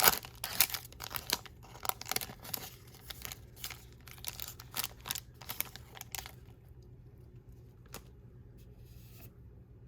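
Plastic trading-card pack wrapper being torn open and crinkled in the hands, a dense run of crackles that stops about six seconds in, followed by a few faint clicks of handling.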